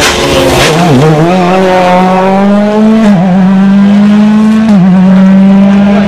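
Ford Fiesta RRC rally car's 1.6-litre turbocharged four-cylinder engine at full racket: a sharp crack and a dip in revs through the corner, then it pulls away hard with two quick upshifts.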